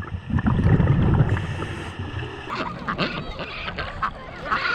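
Wind rumbling on the microphone, then ducks quacking and calling from about halfway through.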